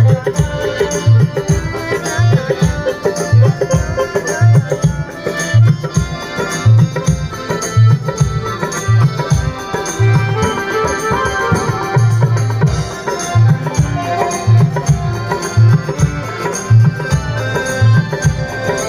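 Loud music played through a sound system, with heavy, repeated bass drum hits under a drum-led melody.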